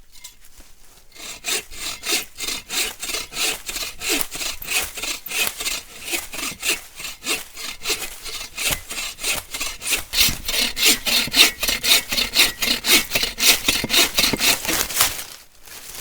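Hand saw cutting through a log in steady back-and-forth strokes, about two a second, with a stick wedged in the cut to keep the blade from pinching. The strokes grow louder in the latter part and stop abruptly near the end.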